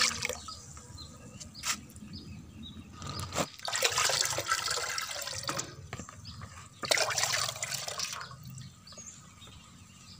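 Liquid fertilizer poured from a plastic basin, splashing into a plastic bucket and a galvanized metal watering can. There is a short pour right at the start, a longer one about three seconds in, and another about seven seconds in.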